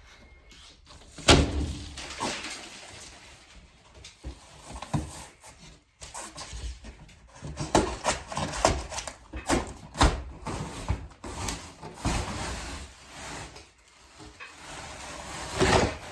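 Irregular knocks, bangs and rustling from things being handled, with one loud bang about a second in and a busy run of knocks from about six seconds on.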